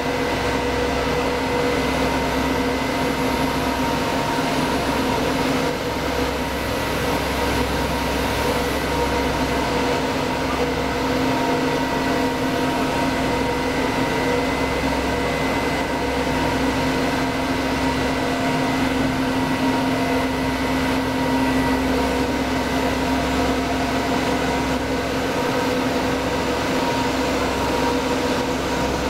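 Steady drone of an intermediate copper wire drawing machine with online annealer running, heard at its electrical control cabinet, with a constant hum of several pitches over a low rumble.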